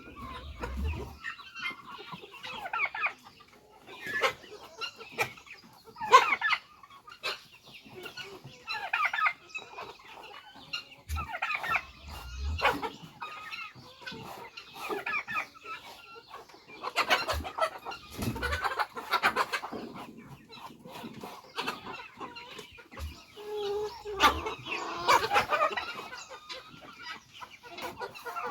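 Flock of chickens clucking and calling in short, irregular bursts, with a few dull low thuds now and then.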